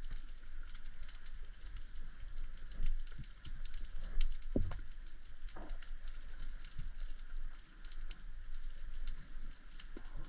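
Underwater ambience heard through the camera underwater: a steady crackle of many tiny sharp clicks over a low rumble, with a dull knock about four and a half seconds in.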